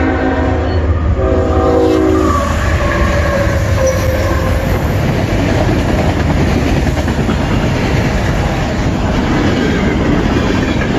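Freight train passing close by. The lead locomotive's horn sounds, breaks off briefly, blasts again and cuts off about two seconds in. Then the locomotives and cars rumble past, wheels clacking over the rail joints.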